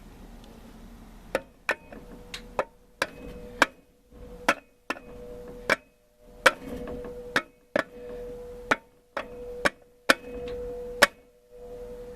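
Repeated sharp metal taps, about one to two a second, driving a 4L60E transmission's low roller clutch housing down into the case. From about halfway through, a steady ringing tone carries on between the taps: the case ringing, the change in tone that means the housing is seated.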